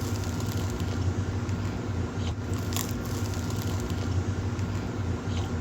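Someone biting and chewing a bagel sandwich, with a few crisp crunches, over a steady low hum.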